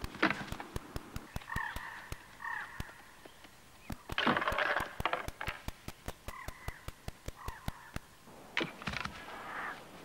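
Horned rams, ibex and goats butting heads: three loud clashes of horn on horn, near the start, about four seconds in and near the end, over a rapid run of sharp clicks, with two short stretches of harsh, hoarse calls between the clashes.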